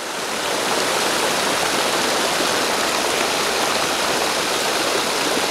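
Creek water rushing and spilling over bedrock, a steady rushing noise that swells slightly about half a second in and then holds.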